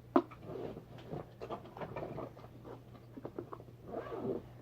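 A sharp click just after the start, then soft, irregular rustling and squishing as slime is handled and put into a plastic bag.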